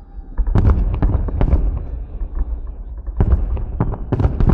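Salute fireworks shells bursting in quick volleys of sharp bangs, one cluster about half a second in and another near the end, over a continuous low rumble.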